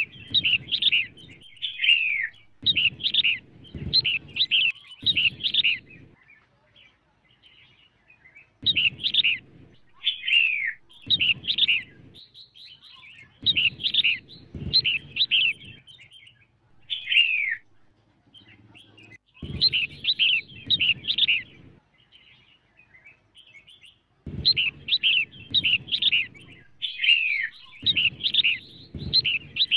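Female red-whiskered bulbul calling in phrases of quick, bright chirping notes, each lasting a second or a few seconds, repeated after short pauses, with a low muffled rumble under each phrase. This is a female's call of the kind played to rouse and excite male bulbuls.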